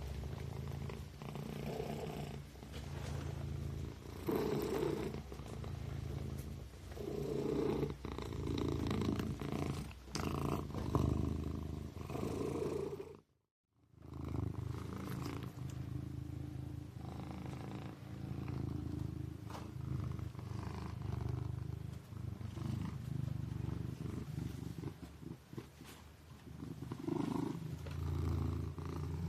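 A kitten purring, a low rumble that swells and eases with each breath about every two to three seconds. The sound cuts out completely for about a second near the middle, then resumes.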